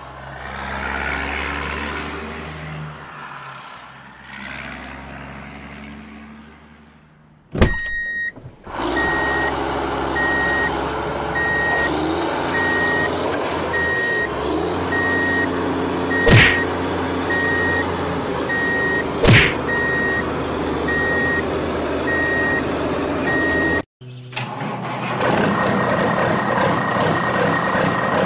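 A truck sound effect: a heavy engine running. Through the middle it is joined by a reversing alarm beeping at a steady rate, with two sharp knocks about three seconds apart. The sound cuts off abruptly twice, once before the beeping starts and once as it ends.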